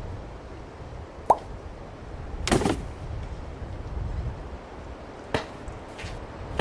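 Cartoon sound effects over a low rumble: a short plop with a quick rising pitch about a second in, a longer rushing sound near the middle, and a sharp knock near the end.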